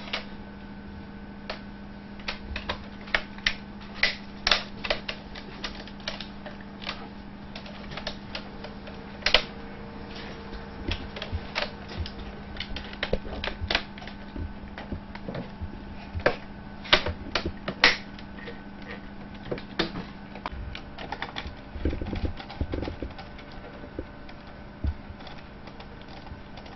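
Irregular sharp clicks and knocks of an HP 625 laptop's plastic case parts being handled, pressed together and worked with a screwdriver during reassembly. A steady low hum runs underneath.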